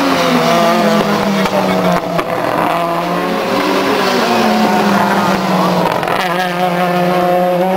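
Race car engines running hard as two cars lap the course. The pitch drops about two seconds in and climbs again near the end, as the engines rev through the gears.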